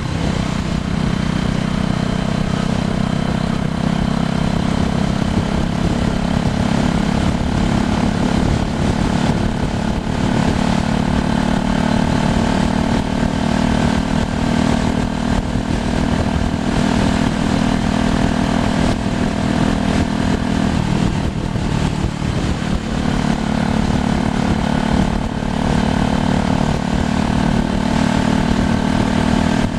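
Bicycle riding along a road: wind on the microphone and a steady hum from the tyres, easing briefly about two-thirds of the way through.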